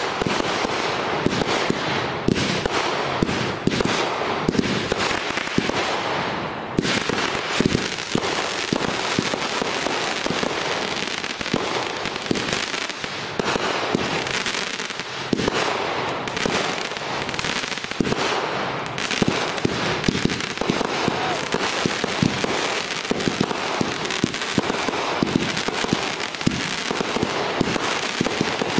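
Aerial fireworks going off in a dense barrage: many bangs in quick succession over a continuous crackle.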